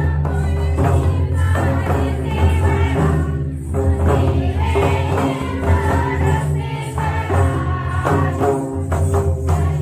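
Karam folk music: a group of voices singing together over a drum and jingling percussion, at a steady dance rhythm.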